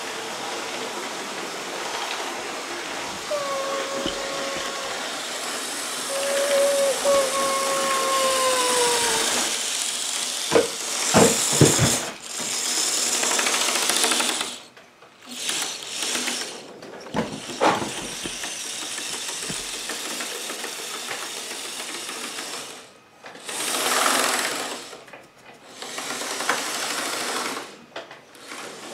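HO scale model trains running on the layout: a steady rattling clatter of motors and wheels on track. A pitched whine comes in a few seconds in and sags in pitch near nine seconds, sharp knocks follow around eleven seconds, and the noise briefly drops out several times later on.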